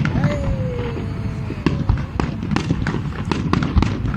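New Year fireworks display: a rapid string of sharp bangs and crackles over a continuous low rumble from the shells bursting.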